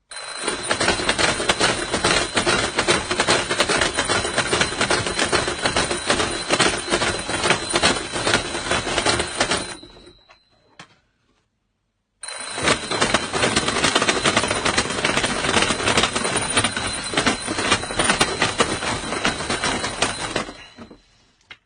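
Alarm clock going off: a loud, rapid rattling ring with a steady high tone. It stops for about two seconds near the middle, then starts again.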